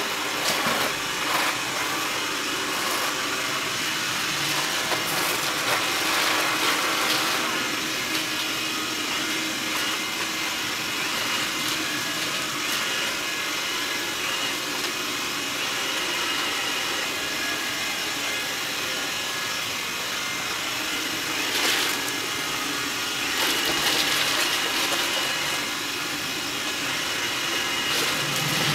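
Xiaomi Mi robot vacuum running, its suction fan and brushes giving a steady whirring hiss as it sweeps up scattered rolled oats and powder from a hard floor, briefly louder now and then.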